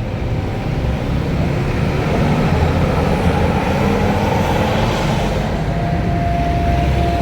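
Large diesel tour bus engine running close by, its rumble getting louder a couple of seconds in. A thin steady whine comes in near the end.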